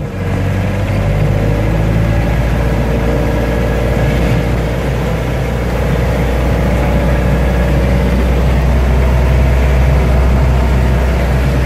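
Engine of a microbus running steadily, heard from inside the cabin as a loud, low drone.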